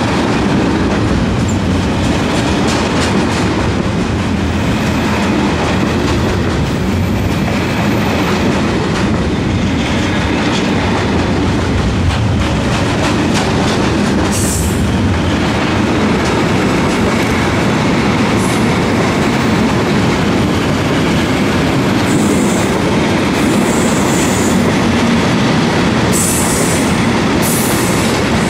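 Freight wagons of a long mixed freight train, covered sliding-wall wagons and tank wagons, rolling past close by at steady speed. Their wheels rumble and clickety-clack continuously over the rails, with several short high-pitched wheel squeals, mostly in the second half.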